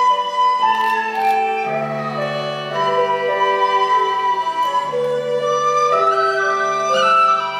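Live Cambodian ensemble music: a melody of held notes that changes pitch about once a second, over a lower held line.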